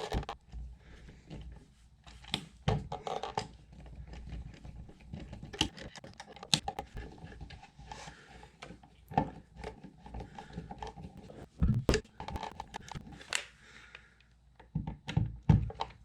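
Irregular clicks, taps and knocks of a USB wall outlet being pressed into a metal electrical box and its mounting screws being driven in with a screwdriver.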